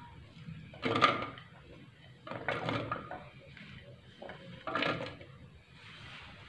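Raw spice pieces (shallots, garlic, ginger, chilies) dropping off a plate into an empty blender jug: a handful of short knocks and clatters, the loudest about a second in and again near five seconds.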